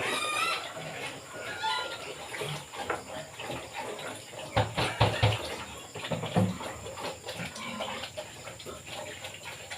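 Pig pen sounds: pigs feeding on cucumbers, with wet chewing and slurping noises and a few knocks about halfway through, while chickens cluck in the background.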